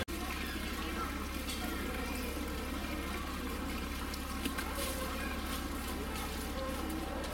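Water trickling and moving in a polar bear's pool, an even wash of water noise over a steady low hum.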